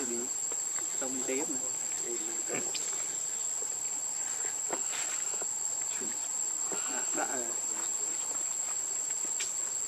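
Insects droning in one steady, unbroken high-pitched whine, with a few faint short clicks.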